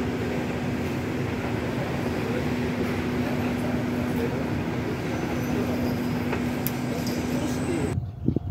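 Steady hum of an electric train: an even rumble with a constant low tone that holds unchanged, then cuts off abruptly near the end.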